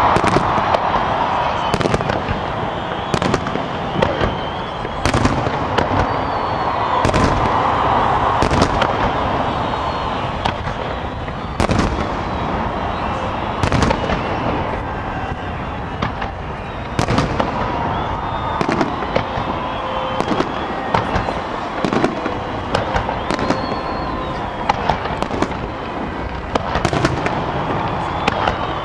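Fireworks display: aerial shells bursting in the sky with sharp bangs, irregular and roughly every second or two, over a continuous din.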